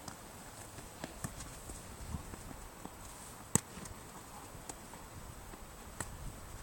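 A football being kicked on a grass pitch: several short, sharp thuds spread through, the loudest about three and a half seconds in, over a low rumble.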